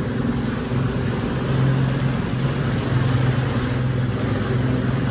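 Boat motor running steadily under way, a low engine hum over a rushing noise of wind and water.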